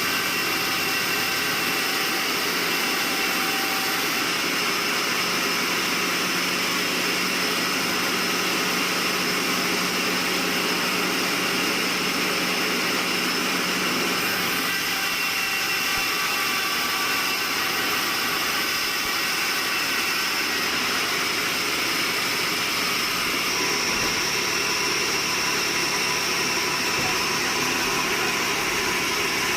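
Sawmill machinery running steadily: a continuous mechanical drone with steady high-pitched tones over it.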